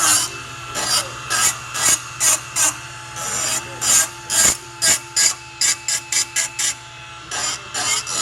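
Milwaukee M12 cordless right-angle die grinder with a burr bit cutting into metal in many short touches, about two or three a second. Its high motor whine dips under each cut.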